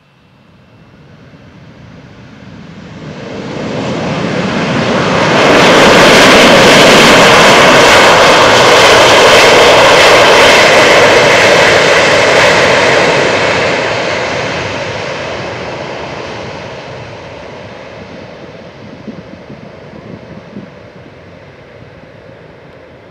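Four-engined Airbus A340 airliner's CFM56 jet engines, loud as the plane rolls past along the runway just after landing. The noise swells over about five seconds, holds for several seconds, then slowly fades as it rolls away.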